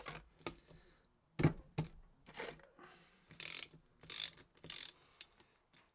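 Ratchet wrench undoing bolts on a manual gearbox casing: a few metal knocks and clinks, then three short bursts of ratchet clicking in the second half.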